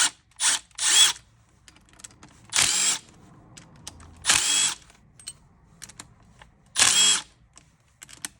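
Small power tool, a drill or driver, whirring in short bursts of under half a second, five times with pauses between, as it spins out the 10mm bolts holding the power steering pump housing together.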